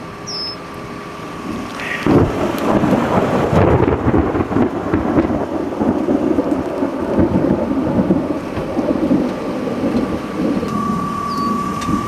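Thunder from a supercell thunderstorm: a sudden clap about two seconds in, then a long rolling rumble that slowly eases near the end.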